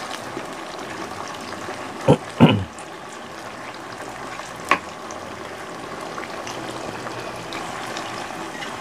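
Steady sizzle of potatoes frying in a wok, with two sharp knocks about two seconds in and another near five seconds.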